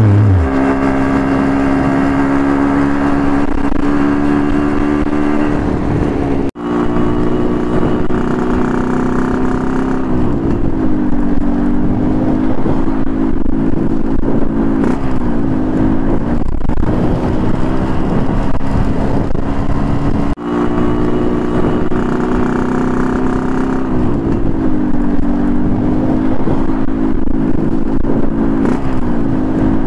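Yamaha RX-King two-stroke motorcycle engine running at cruising speed. Its pitch dips and climbs back several times as the throttle is eased off and opened again. The sound cuts out briefly twice, about six seconds and twenty seconds in.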